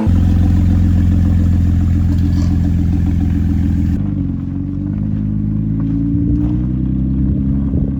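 Small gasoline engine of a motorized ride-on shop stool running at high, steady revs. About halfway through the note steps slightly lower and it keeps running.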